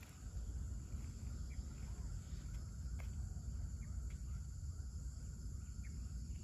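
Outdoor ambience: a steady high-pitched insect chorus with a few short bird chirps, over a low background rumble.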